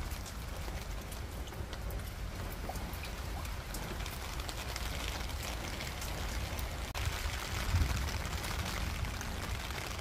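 Steady rain falling on a rooftop garden, many separate drops ticking on wet boards, pots and leaves over a continuous hiss, with a low rumble underneath.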